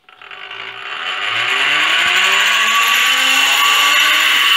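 Small 12 V DC motor starting up, driving a bolt-weighted flywheel and a geared DC generator: a motor whine and gear noise that rise in pitch and loudness over about two seconds as the rig spins up, then run steadily.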